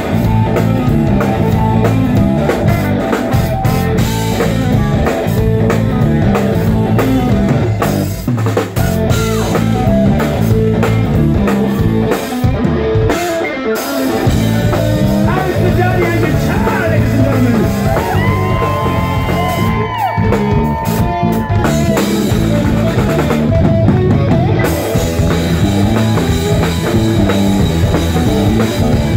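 Live rock band playing loud: electric guitars and a drum kit, with keyboards, some sustained bending notes around two-thirds of the way through.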